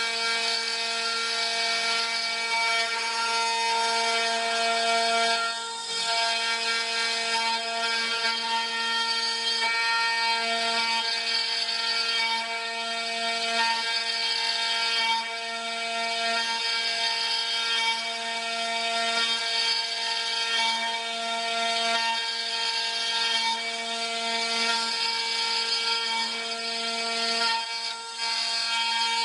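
CNC wood-carving lathe's router spindle running with a steady high-pitched whine of several tones, over the hiss of the cutter carving a spiral groove into a turning wooden blank.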